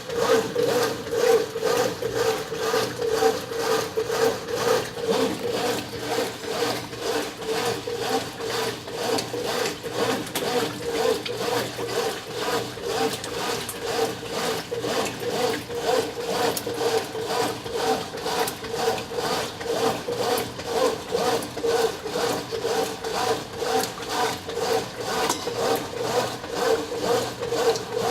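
Brastemp 9 kg top-loading washing machine agitating a load in high water: a steady motor hum with a regular back-and-forth churning, about two strokes a second.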